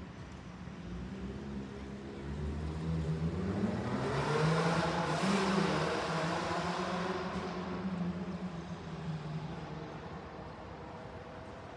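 A vehicle passing out of sight: its motor tone rises in pitch over a couple of seconds, is loudest about halfway through, then fades slowly.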